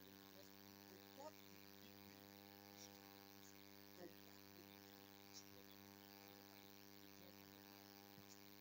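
Near silence dominated by a steady electrical mains hum with many evenly spaced overtones, plus a few faint brief ticks.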